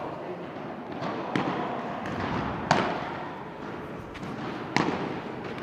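Padel ball being struck in a rally: three sharp pops, each one or two seconds apart.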